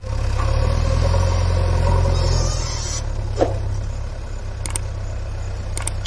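JCB backhoe loader's diesel engine running as the machine carries a loaded front bucket of soil. The engine is louder for the first couple of seconds, then eases off, with a short squeak about three and a half seconds in.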